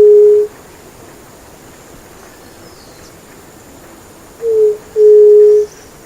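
A bird giving a low, pure two-note hoot, a short falling note followed by a longer steady one. The call ends just after the start and comes again about four and a half seconds in.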